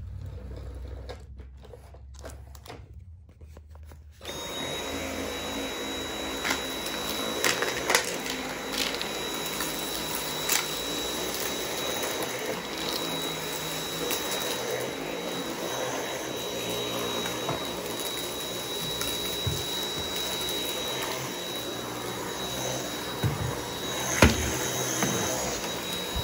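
Dyson V8 cordless stick vacuum switching on about four seconds in, then running steadily with a thin high whine over its motorised brush head. Sharp clicks and crunches come through as debris is sucked up from the rug.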